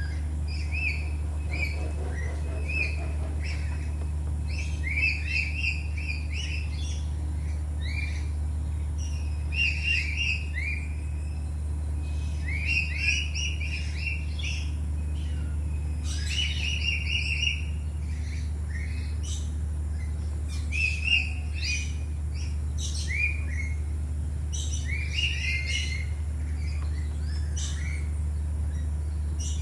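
Birds chirping and twittering in short, quick clusters of calls throughout, over a steady low hum.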